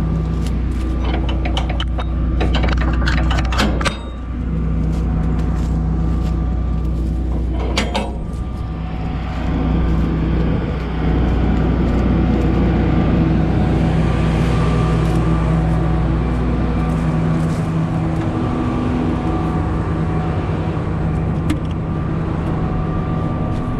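Claas Lexion 670 combine harvester's diesel engine running steadily, heard from inside the cab, with a few sharp clicks and knocks in the first eight seconds.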